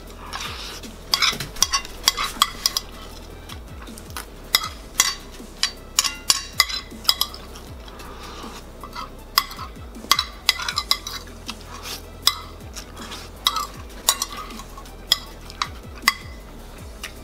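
Fork clinking and scraping against a plate in quick, irregular clusters of strokes as scrambled eggs are shovelled off it.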